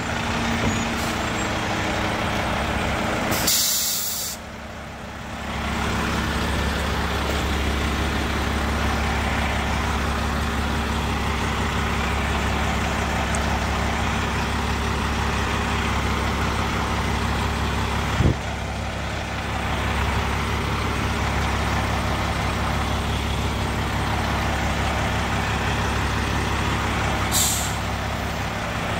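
Heavy truck's diesel engine running steadily, with a loud hiss of air brakes a few seconds in and a shorter one near the end.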